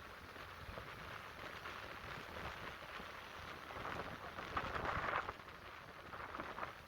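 Atlantic Ocean surf breaking and washing up the beach, swelling louder about two-thirds of the way through and then easing off, with wind rumbling on the microphone.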